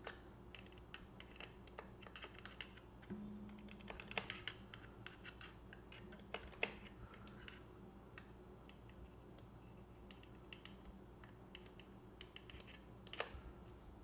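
Faint, irregular clicking of a hand pump oil can being worked as it squirts oil onto the rocker arms and valve springs of a small engine's top end. The clicks come thick for the first half, then stop, with one more near the end.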